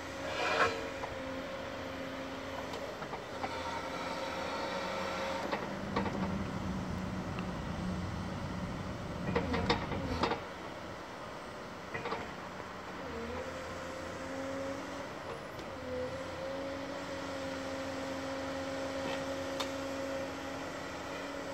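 Excavator-mounted Movax vibratory hammer vibrating a steel AZ14-770 sheet pile down into sand, a steady machine hum with two held tones. The hum dips and picks up again about halfway through, and sharp metallic clanks come now and then.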